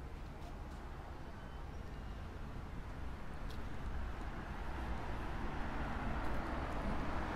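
Road traffic noise: a motor vehicle's engine and tyre sound growing steadily louder as it approaches, over a low rumble.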